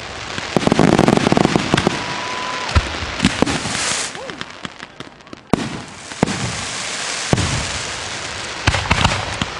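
Consumer aerial fireworks going off in rapid succession: many sharp bangs of bursting shots over a continuous hiss and crackle.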